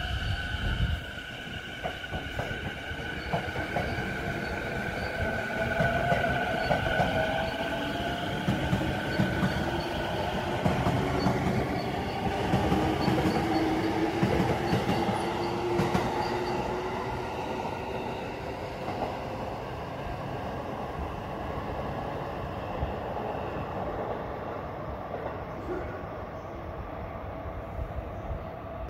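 JR Saikyō Line electric commuter trains running through the station below, a low rumble of wheels on rails with the whine of the trains' motors and wheels sliding slowly in pitch. It is loudest in the middle and eases off toward the end.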